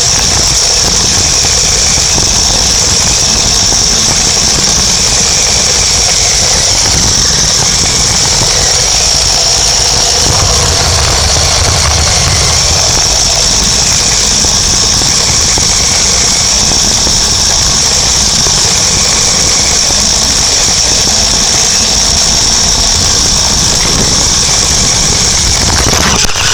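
Toy RC truck driving, its small motor and gears giving a steady high whine over the rumble of its wheels on the ground, picked up by a phone taped to the truck itself.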